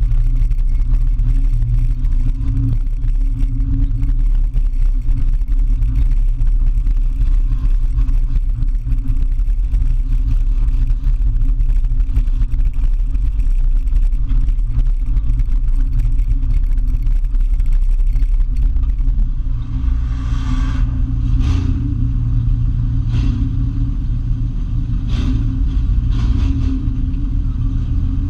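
Demolition derby car's engine running loud and steady under load, heard from inside the gutted, stripped-out cabin. From about two-thirds of the way through, a series of sharp knocks and clatters cuts in over the engine.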